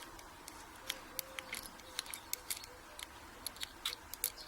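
Light metallic clicks and taps at irregular intervals as tweezers pick the top pins and springs out of a brass euro cylinder lock.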